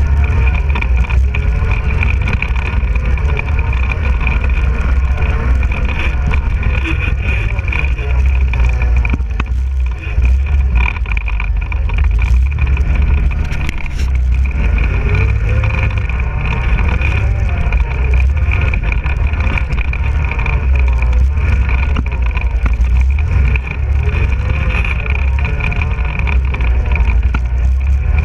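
ATV engine running under way, its pitch rising and falling as the throttle changes, over a heavy low rumble from riding the rough, muddy trail.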